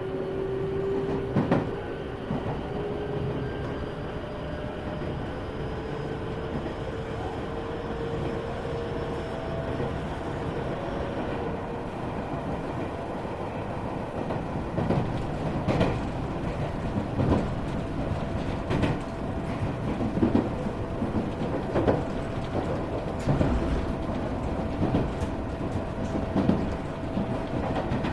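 Running sound inside an Iyotetsu 3000 series electric commuter train's motor car. A steady rumble carries a whine that rises slowly in pitch through the first half as the train gathers speed. From about halfway, the wheels clack over rail joints roughly every second and a half.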